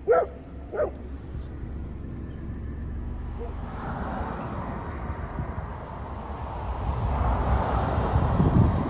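Two short dog barks about half a second apart right at the start, then the steady road and tyre noise of a car driving, heard from inside, swelling louder toward the end.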